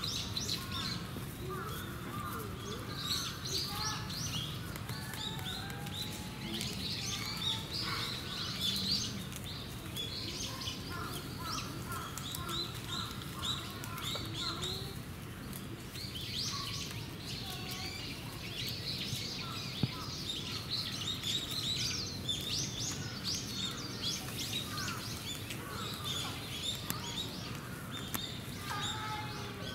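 Many small birds chirping and twittering, short high chirps overlapping one another throughout, over a steady low background murmur.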